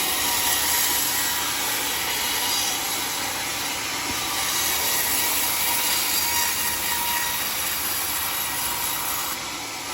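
Sawmill saw cutting lengthwise through a teak log: a steady, loud hiss of the blade in the wood, easing slightly near the end.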